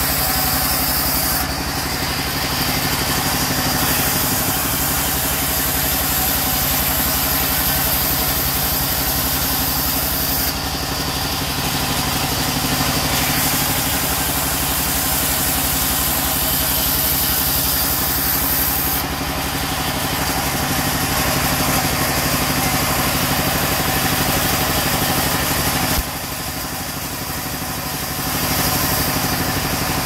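Sawmill band saw running and ripping mahogany planks over a steady machine drone. The high cutting hiss comes and goes in stretches of several seconds, and the sound drops noticeably for a couple of seconds near the end.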